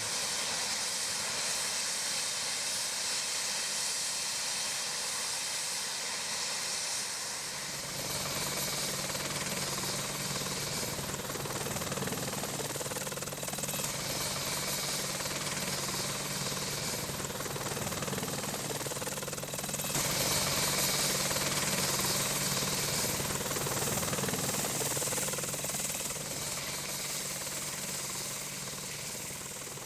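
Helicopter running: a steady hiss of turbine and rotor noise, with a low steady hum joining about eight seconds in. The sound changes abruptly around eight and again around twenty seconds in.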